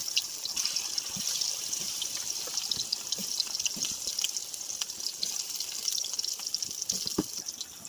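Steady heavy rain: a continuous hiss scattered with many small drop ticks and a few duller taps.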